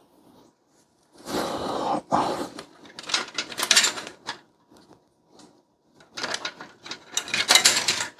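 Hands handling and pushing in the Thermalright Frozen Prism 360's fan power cables and plastic connectors, heard as bursts of rustling and scraping. The bursts come about a second in, again around three to four seconds, and through the last two seconds.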